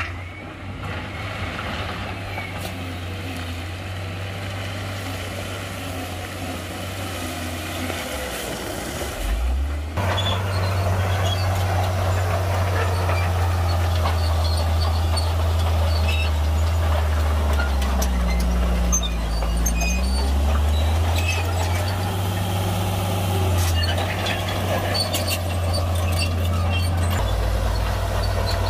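Heavy diesel earthmoving machinery running steadily, with scattered clanks and rattles. The sound changes abruptly and gets louder about a third of the way in, and an engine's pitch briefly dips and rises again near the middle.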